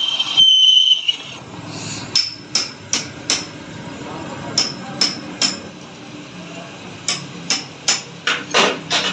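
Hammer striking metal in quick groups of blows about two or three a second, each blow ringing briefly: four blows, a pause, three more, a pause, then about six. A steady high-pitched whine sounds for the first second before the hammering starts.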